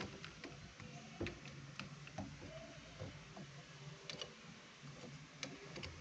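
Screwdriver working the screws of a metal door knob as it is fitted: irregular small metallic clicks and ticks, over a faint low hum.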